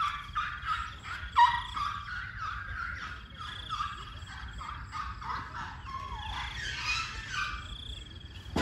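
Birds calling: many short calls overlapping throughout, with a higher trill that comes and goes every few seconds.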